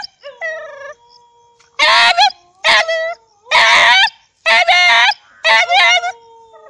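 A dog making loud, wavering 'aaUUUU' yowls, about five in quick succession, with a quieter drawn-out note held between them.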